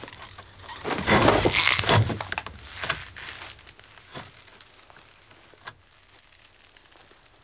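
A loud burst of knocking and clattering about a second in, lasting about a second, followed by a few single sharp knocks that grow quieter.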